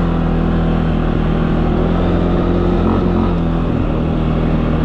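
A vehicle engine running at a steady speed, its even hum holding constant throughout.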